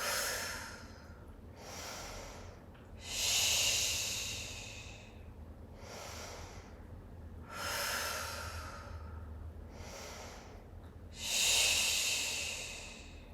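A person breathing in through the nose and out through the mouth with long hissing 'who' and 'shh' breath sounds, about four out-breaths roughly every four seconds with shorter, softer in-breaths between.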